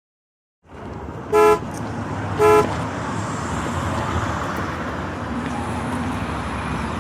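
Two short vehicle-horn toots about a second apart over steady traffic noise, which starts suddenly just under a second in.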